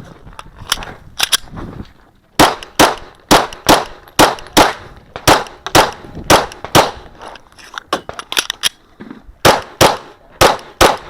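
A string of rapid 9mm pistol shots from a Glock 34, fired mostly in pairs a third to half a second apart, starting about two and a half seconds in. Steel targets ring between some of the shots.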